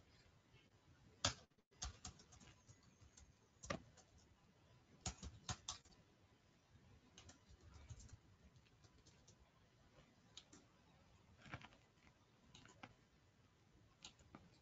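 Faint, scattered clicks of computer keyboard keys and a mouse, a dozen or so at irregular intervals, the loudest about a second in, over near-silent room tone.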